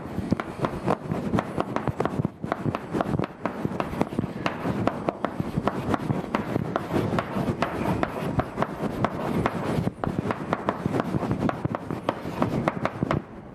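Chalk writing on a blackboard: a dense run of quick taps and scratches, with a few brief pauses.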